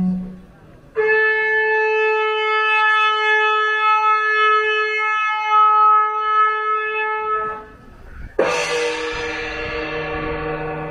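A ceremonial horn holds one long, steady note for about six seconds. About eight seconds in, a sudden strike sets a gong ringing.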